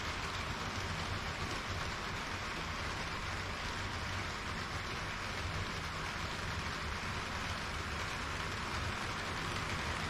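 HO-scale model trains running on the layout's track: a steady rolling hiss with a low rumble of wheels and motors underneath.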